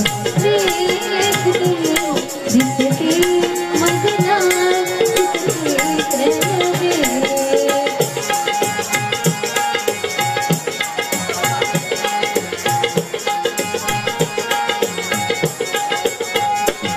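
Live Konkan folk song (naman): a girl's voice sings over a harmonium, with drum and small hand percussion keeping a fast rhythm. About halfway through the voice stops, and a held harmonium note and the percussion carry on.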